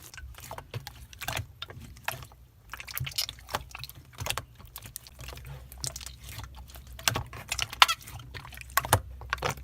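Slime being squished and stretched by hand, giving a busy run of irregular sticky clicks and crackling pops.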